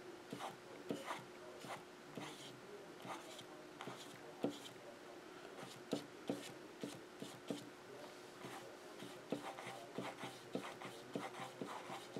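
Old, scruffy angle brush with a little white acrylic stroking and dabbing across a stretched canvas: faint, irregular scratchy ticks and swishes, over a faint steady hum.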